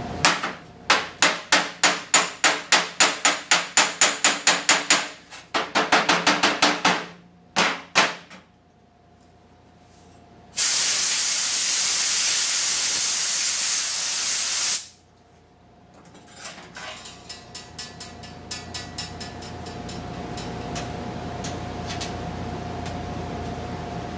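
Hammer striking the steel door panel at about three to four blows a second for some five seconds, then a quicker run of blows and two single strikes. Around the middle comes about four seconds of loud, steady compressed-air hiss from an air tool held against the weld. Near the end a quieter steady hiss and faint hum follows, with a few faint ticks, as the oxy-acetylene welding torch is lit.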